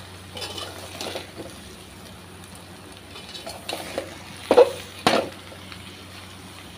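Metal spoon stirring and scraping spiced aubergine and potato pieces around an aluminium pot as they fry, mixing the powdered spices through, over a light sizzle. Two louder clanks of the spoon against the pot come about two-thirds of the way in.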